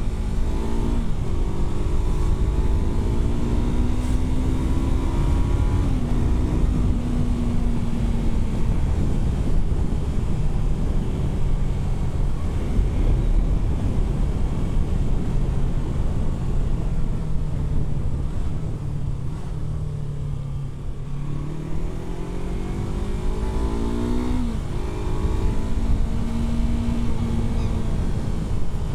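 Yamaha R3 parallel-twin engine pulling through the gears, rising in pitch with sudden drops at upshifts about a second in and around six seconds. It slows with the pitch falling around twenty seconds, then accelerates again with another upshift near twenty-five seconds. A low rush of wind runs under it.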